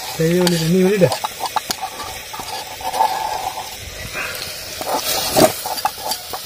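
A brief voice for about the first second, then quail curry simmering in a steel pot over a wood fire: a soft hiss with scattered clicks and crackles, and a brief louder burst about five seconds in.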